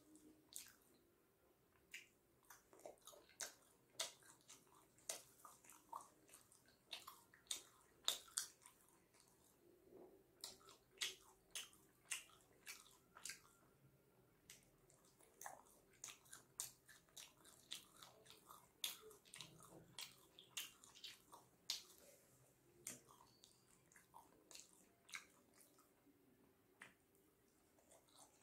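Faint, close-up chewing and mouth sounds of a person eating steamed chicken momos: a steady, irregular run of short clicks.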